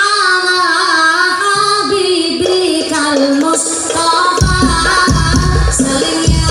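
A woman singing a sholawat into a microphone through the stage speakers, holding long wavering notes that slide from pitch to pitch. About four seconds in, low drum beats come in under her voice.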